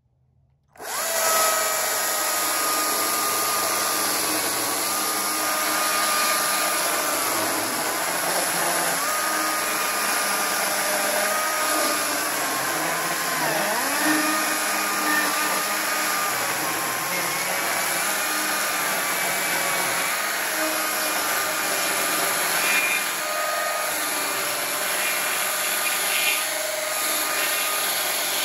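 Stihl chainsaw starting up about a second in, then cutting lengthwise along the top of a log. It runs with a steady whine that dips in pitch when the chain bogs down in the wood.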